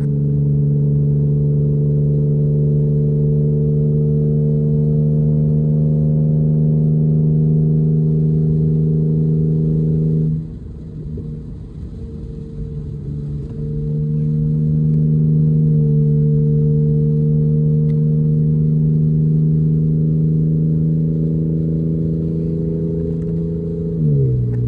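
A vehicle engine running steadily at one pitch. It drops back for a few seconds partway through, then comes up again, and near the end its pitch falls away and it cuts off.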